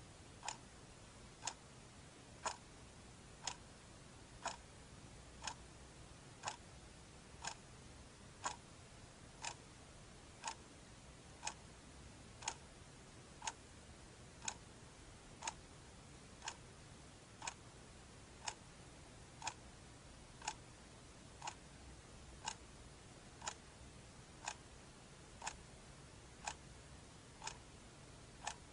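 Clock ticking steadily, one sharp tick each second, over a faint steady hiss.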